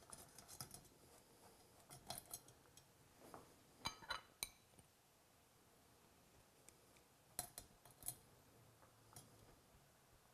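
Faint, scattered clinks and scrapes of a wire mesh skimmer against a stainless steel steamer pot and a ceramic plate as steamed vegetables are scooped out. The loudest cluster of clinks comes about four seconds in.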